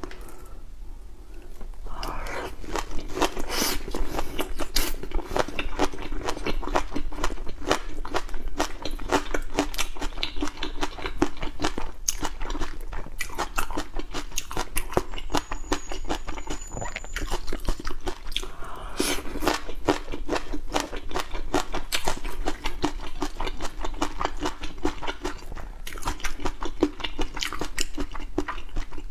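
Close-miked biting and chewing of a spicy shrimp roll topped with chili, peanuts and sesame, with wet smacking mouth sounds all through.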